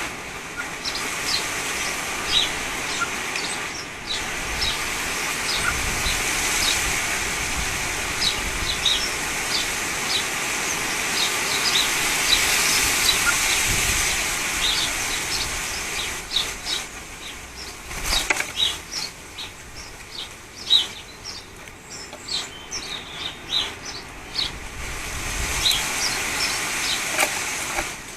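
Wind gusting through a garden, strongest in the first half and easing after about sixteen seconds, with garden birds giving short, high chirps and calls throughout. A single sharp knock about eighteen seconds in.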